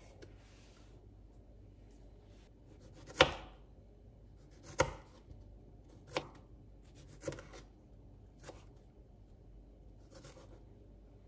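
Knife chopping on a cutting board in slow single cuts: six sharp knocks about a second or so apart, each fainter than the last.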